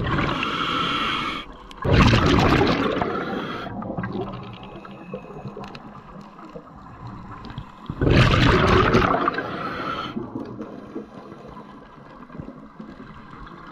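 A scuba diver breathing through a regulator underwater: a hissing breath in at the start, then a rush of exhaled bubbles about two seconds in. Another breath and bubble rush comes about eight seconds in and fades away.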